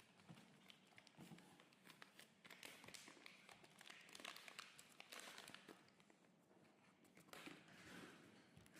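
Faint crinkling and light tapping of blind-box packaging being handled and opened, many small irregular clicks and rustles.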